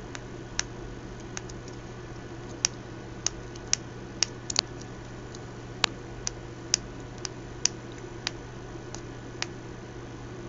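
About fifteen light, irregularly spaced clicks while the pins and keys of a bare keypad module are probed and handled, over a steady low hum.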